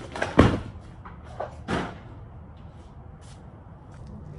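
A few knocks and thumps of a large cardboard box being handled on concrete, the loudest about half a second in, then two lighter knocks a little over a second later.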